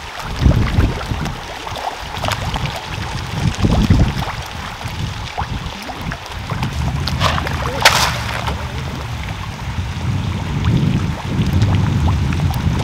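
Fish pond water splashing and lapping as fish break the surface, with a couple of sharper splashes about seven and eight seconds in, over wind rumbling on the microphone.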